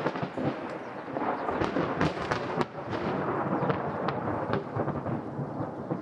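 Rain pouring down, a dense steady hiss with many small drops splashing on hard surfaces.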